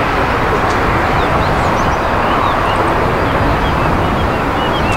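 Steady jet noise of an approaching Airbus A380 airliner on final approach, gear down, with small birds chirping in short high calls throughout.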